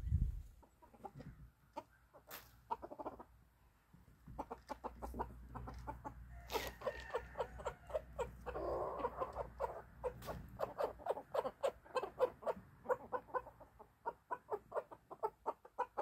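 Silkie chickens clucking, short clucks in quick succession starting about four seconds in, with a longer call around the middle.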